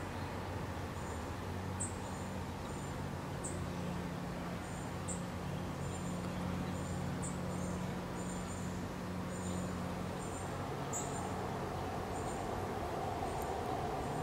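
Outdoor ambience: a steady low hum under short, high chirps that repeat about once or twice a second.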